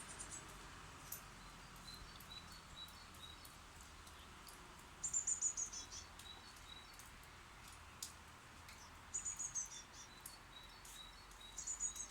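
Small birds at a nest box calling: three short bursts of rapid, high-pitched chirping about five, nine and twelve seconds in, with fainter single high notes in between.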